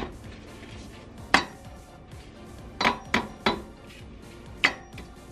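Sharp metallic clinks of a steel tool tapping on a cotter pin in a CV axle nut, about six separate strikes with three in quick succession near the middle.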